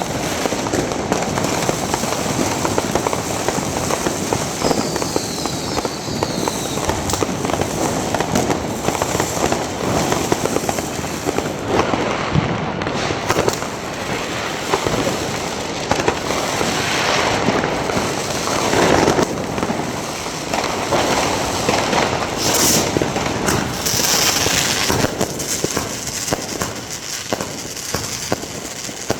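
Dense New Year's fireworks going off continuously: a steady crackle of firecrackers with many bangs close together. Falling whistles sound near the start and again about five seconds in.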